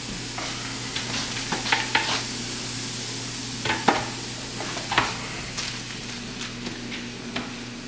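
Diced red bell peppers, onions and garlic sizzling as they sauté in a frying pan, with irregular scrapes and knocks of a utensil against the pan as they are stirred.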